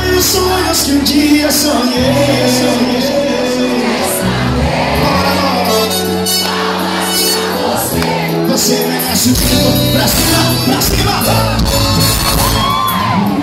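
Live forró band music played loud through a club sound system, with a singer's voice over the band and the crowd shouting and cheering.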